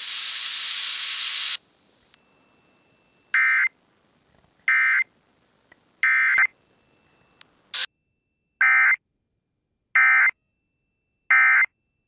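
Emergency Alert System SAME data bursts from an FM radio: three short identical digital bursts about 1.4 s apart, a pause, then three more. These are the header and end-of-message codes of a Required Weekly Test, which carries no attention tone. It opens with about a second and a half of static hiss.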